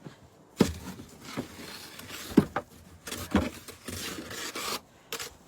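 A snow shovel scraping along snow-covered ground in several strokes, with three sharp knocks from the blade.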